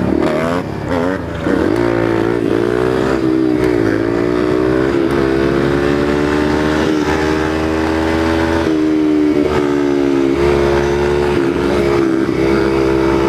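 Dirt bike engine running, with a few quick revs in the first two seconds, then holding a mostly steady pitch that wavers slightly with the throttle.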